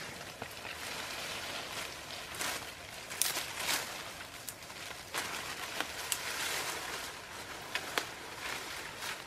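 Leafy branches rustling as they are handled and laid onto a roof of branches, with a few sharp cracks of twigs among them.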